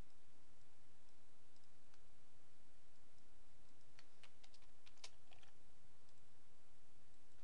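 Computer keyboard keys clicking in a short quick run about four seconds in as a word is typed, with a few fainter clicks earlier, over a faint steady hum.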